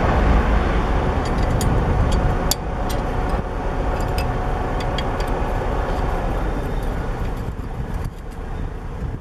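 Steady low rumble with a few light, short clicks scattered through it as a brake disc is handled and lined up on its hub.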